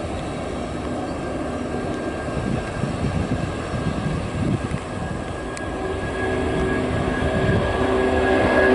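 Airbus A330's jet engines running as it moves along a wet runway: a steady rushing noise that grows louder, with a humming tone coming in about six seconds in and strengthening toward the end.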